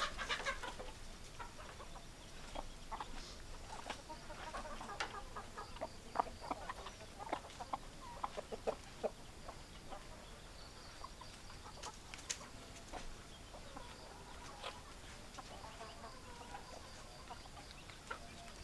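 Hens clucking: many short, scattered clucks from several birds, fairly quiet, with no long crow.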